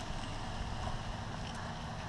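Riding noise from a Pedego City Commuter electric bike rolling over asphalt: a steady low hum and tyre rumble, with wind on the handlebar-mounted microphone.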